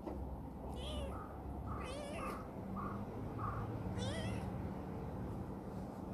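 Small black female kitten meowing while being stroked by hand: three high, wavering meows, about one, two and four seconds in.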